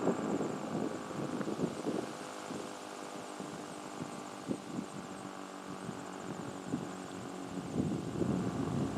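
Steady mechanical drone made of several even, unchanging tones, with irregular louder surges near the start and end, and a faint high pulsing whine above it.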